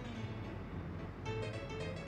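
Instrumental background music of light pitched notes; the notes thin out briefly about halfway through, then pick up again.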